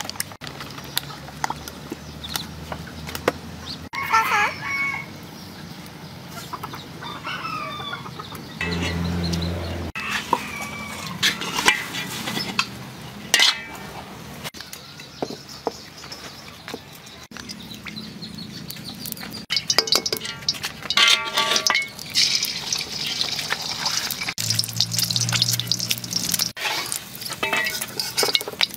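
Chickens clucking and crowing around a big wok of noodles being stirred with a metal spatula, which clicks and scrapes on the pan. Oil hisses and sizzles in the wok near the end as eggs fry.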